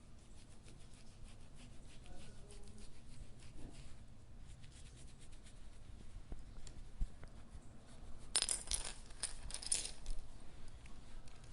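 Dog collar's metal tags and buckle jingling: light, scattered clinks, then a louder bout of jangling about eight seconds in that lasts around two seconds.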